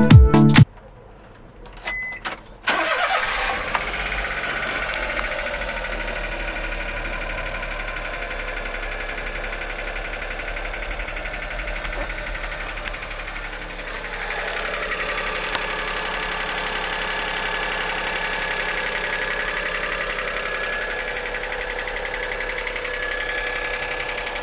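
Daihatsu Hijet's three-cylinder 660 cc engine, heard from inside the cab, cranks briefly and catches, then idles steadily. The idle rises a little about halfway through.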